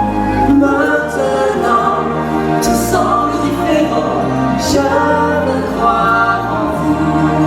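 Show music with choral singing over sustained bass notes, with two short hissy cymbal-like strokes about three and four and a half seconds in.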